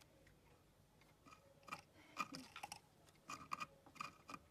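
Budgerigar feeding its incubating mate by regurgitation at the nest box entrance: faint, quick clicking with soft chirps, in three short runs.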